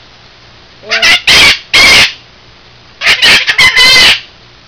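Pet parrot screeching loudly in harsh squawks: three short ones about a second in, then a longer run of rapid squawks from about three seconds in.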